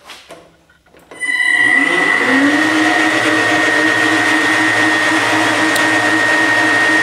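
A lathe's VFD-driven three-phase induction motor and gear drive start about a second in. The pitch rises for about a second as the drive ramps up to speed, then settles into steady running with a strong high whine. Light clicks from the control buttons come before the start.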